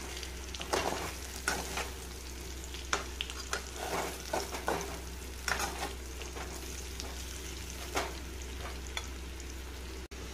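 Raw banana (green plantain) slices frying in oil in a metal kadai while being stirred with a spatula: a steady sizzle with irregular scrapes of the spatula against the pan.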